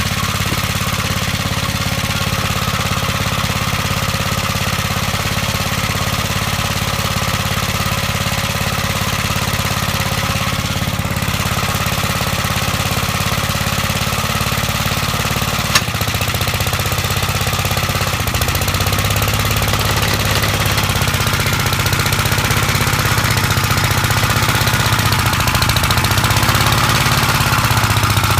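1959 Gravely Model L's single-cylinder engine running steadily. A sharp click comes about 16 seconds in, after which the engine note shifts and the sound grows slightly louder.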